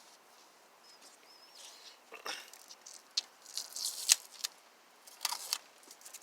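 Scattered light clicks, rustles and short scrapes of hands handling tools and parts while working on a car door speaker, with a brief faint squeak about a second in and the loudest scraping bursts about four and five seconds in.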